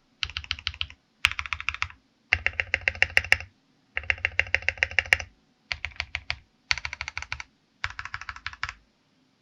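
Royal Kludge RK68 mechanical keyboard being typed on: seven short runs of rapid keystrokes, each about a second long, broken by brief silences.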